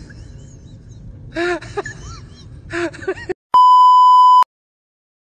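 A voice with rising-and-falling pitch for about three seconds, then a brief gap and a loud, steady beep lasting about a second: the test tone that goes with TV colour bars. It cuts off suddenly into dead silence.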